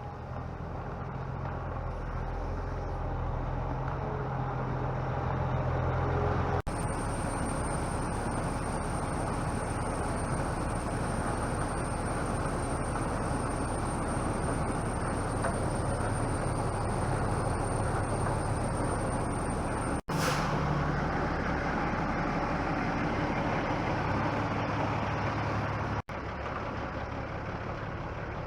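Heavy farm machinery engine running steadily, across several abruptly cut clips; a thin high-pitched whine sits over the engine for the middle stretch.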